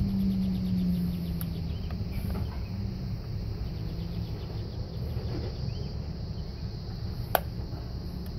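A steady low rumble with faint insect chirping. A single sharp click about seven seconds in stands out as the loudest sound, as the plastic door-latch assembly is handled.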